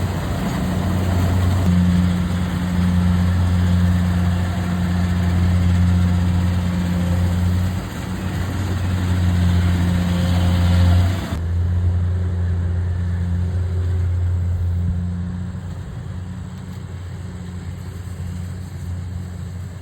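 Engine of a rice harvesting machine running steadily with a strong low hum. About halfway through, the higher-pitched noise drops away abruptly, and the engine sounds a little quieter over the last few seconds.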